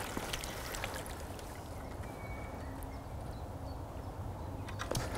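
Faint water sloshing and lapping at a lake's edge, with a few light clicks near the start and near the end, over a low steady rumble.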